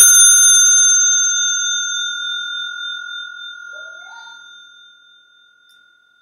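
Crane Suzu brass bicycle bell ringing after a single light hammer strike: one clear, high tone with bright overtones, slowly fading away over about five seconds.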